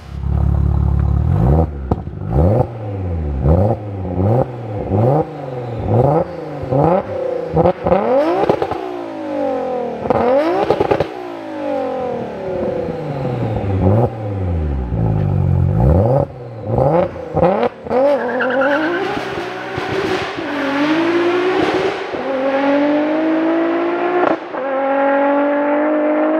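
Twin-turbo 2.7 L V6 (stroked to 3.0 L) of an engine-swapped Audi RS4 B7 being revved hard again and again at a standstill, with sharp pops between the revs. Then the car pulls away, its pitch climbing through several upshifts.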